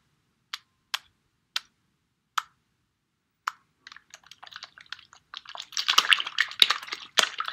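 Five separate sharp clicks spaced out over the first few seconds, then from about four seconds in a dense, irregular crackle of many small taps.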